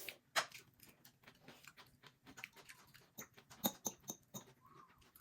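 Close-up eating sounds: a string of irregular short, wet clicks and smacks of someone chewing, the loudest about half a second in and again near the middle.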